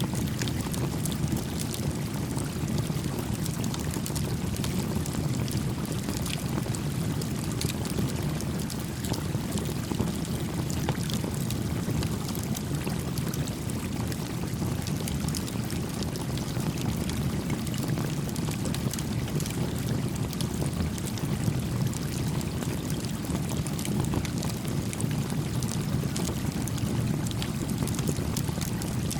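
A small stream running steadily, its low rushing flow continuous, with a campfire crackling over it in frequent faint pops and snaps.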